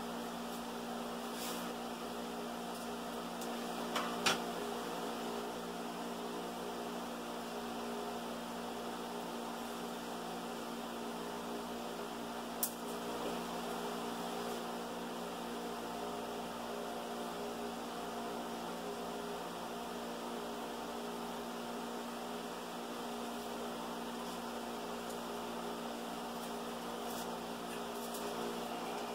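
Steady electrical hum made of several even tones stacked together, broken by a quick pair of clicks about four seconds in and a single click around thirteen seconds in.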